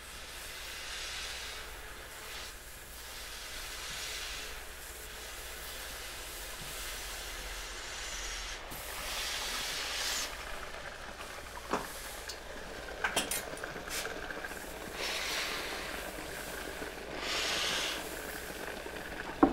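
Handheld garment steamer hissing, with louder surges of steam lasting a second or two, several times over. A few sharp clicks fall between the surges.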